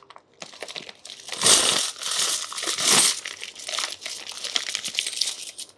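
Clear plastic packet of 10-rupee coins crinkling and rustling as it is squeezed and turned in the hands, with the coins shifting inside. It is loudest twice, about one and a half and three seconds in.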